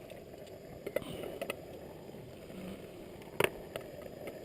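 A few light clicks and clinks of cutlery and dishes being handled, the sharpest about three and a half seconds in, over a steady low rumble.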